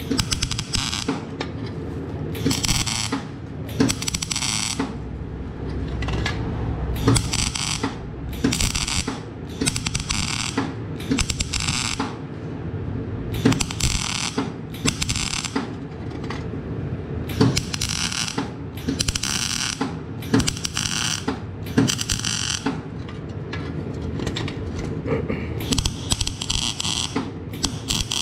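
MIG welding arc crackling in short stitch-welding bursts, each under a second long and coming about once a second, as a steel exhaust pipe is welded. A steady low hum runs underneath.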